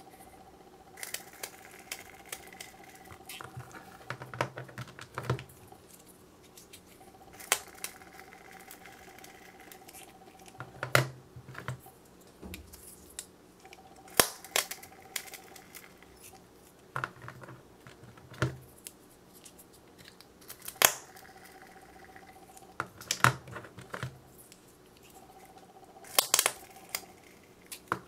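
Plastic syringes filled with glitter clay being handled: irregular sharp clicks and taps as they are picked up, pressed and set down on a hard surface, between quieter stretches while the plungers push the clay out.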